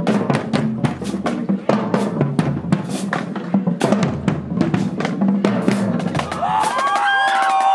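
A marching band drumline playing a fast cadence of snare and bass drums. About six seconds in the drumming stops and several held, pitched tones come in and slide down in pitch.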